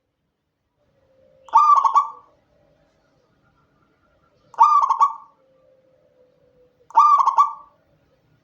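Zebra dove (perkutut) cooing: three short coo phrases a few seconds apart, each a quick run of notes lasting under a second.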